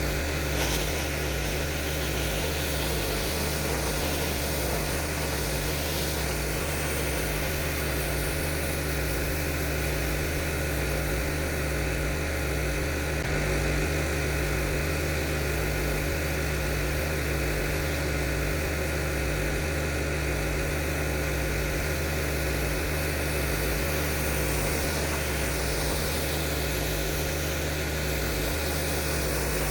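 Pressure washer's gas engine running steadily at constant speed, with a steady hiss of high-pressure water spray over it.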